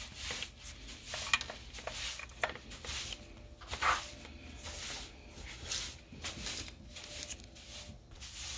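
Rubbing and rustling handling noise, with a few light clicks.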